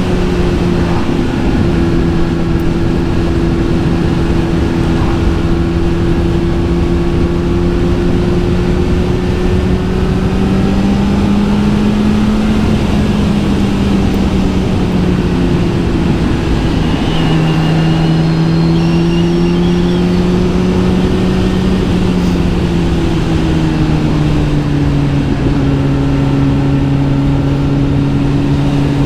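Kawasaki Z900 SE inline-four through an SC Project S1 exhaust, ridden at steady cruising revs with wind noise. The engine note drifts slowly up and down and dips twice, about two-thirds of the way through and again near the end.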